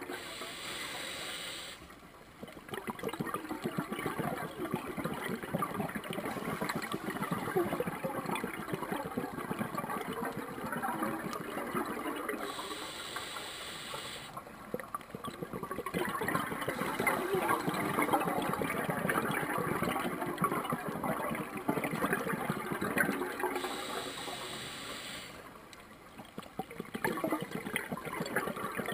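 Scuba diver breathing through a regulator underwater: three inhalation hisses about ten seconds apart, each lasting under two seconds, with long stretches of crackling exhaust bubbles between them.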